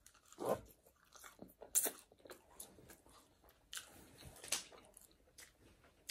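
A person chewing and biting food, with soft scattered mouth clicks and smacks.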